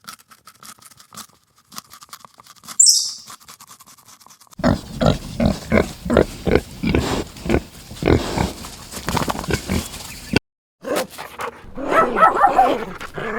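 An animal calling in a rapid series of short grunts, two or three a second, after a quieter stretch with faint clicks and one short high chirp; after a brief break, more rough animal calls.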